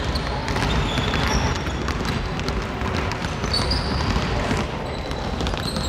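Several basketballs being dribbled at once by a group of children, a dense, continuous patter of overlapping bounces with no single rhythm.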